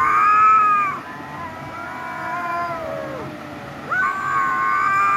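Kittens meowing: a loud, drawn-out meow at the start and another about four seconds in, with quieter meows between them that slide down in pitch.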